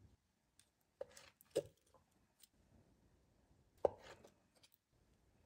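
Kitchen knife cutting a century egg and a salted egg on a wooden cutting board: faint soft knocks of the blade meeting the board, once about a second in, again just after, and once near four seconds.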